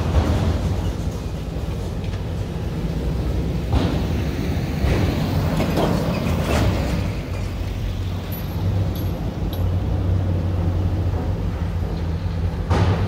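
Steady low drone of the MS Chi-Cheemaun car ferry's engines, with a few louder rushes of noise over it.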